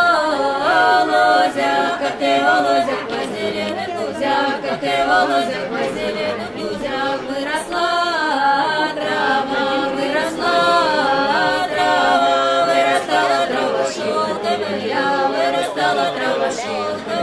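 A group of voices, men and women, singing a Russian folk round-dance song together without instruments, in continuous melodic phrases.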